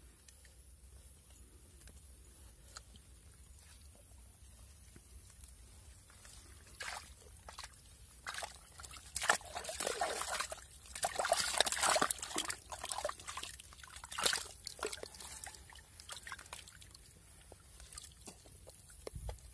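Hands squelching and sloshing in wet mud and muddy water while digging out a flooded eel hole. It is quiet at first, and the splashing is loudest for a few seconds in the middle.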